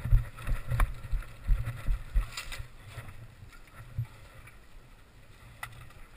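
Footsteps and gear handling picked up by a body-worn camera as the player moves, with low thuds for the first two seconds or so that then die down, and a few sharp clicks.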